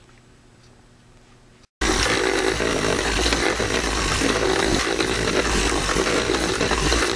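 Faint room tone, then about two seconds in an abrupt switch to an electric polisher with a foam buffing pad running on the painted motorcycle fairing. The polisher's sound is sped up tenfold in fast-forward, a loud, dense, steady whirr.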